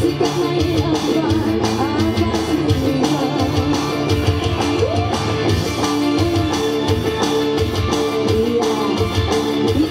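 A live band playing dangdut music: a sustained melody line over a steady drum beat with quick, even ticks on top.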